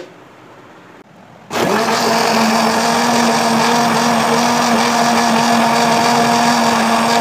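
Electric blender motor switching on about a second and a half in and running at a steady speed, blending whole grapes with water and sugar into juice.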